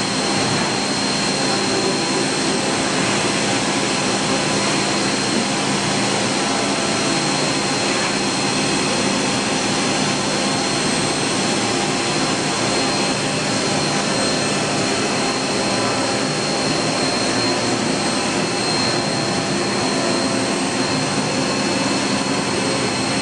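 Mazak Integrex-200IV ST CNC turning center running, a steady mechanical whir with a constant high whine over a low hum.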